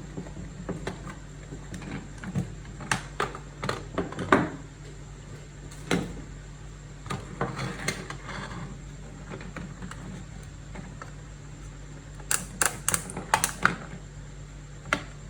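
Irregular sharp clicks and knocks, some in quick clusters, as of small hard parts being handled, over a steady low hum.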